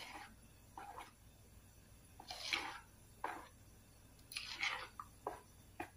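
A metal spoon stirring and folding thick flour batter in a plastic bowl: a series of short, irregular wet squelching strokes, roughly one a second, the loudest about halfway through.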